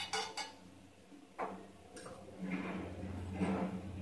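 Oil being spread by hand over a nonstick tawa, with a few light clicks and knocks as a small metal oil pot is handled and set down on the counter. A steady low hum runs underneath.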